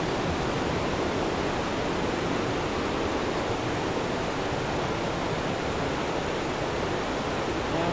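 Steady rush of a swollen, muddy river running high in flood.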